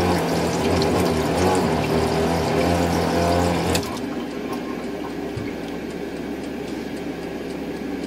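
Camper sink's electric water pump running with water flowing, then cutting off abruptly a little under four seconds in; a quieter steady hum carries on after it.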